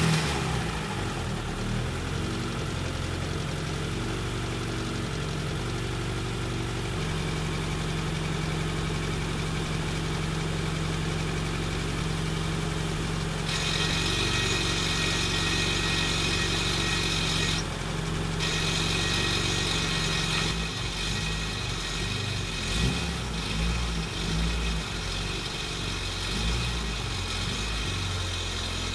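Honda Integra DC2's B20B inline-four engine idling just after being started, a steady low drone picked up by microphones in the engine bay and at the muffler. About halfway in a steady higher hiss joins, and in the last third the idle grows less even.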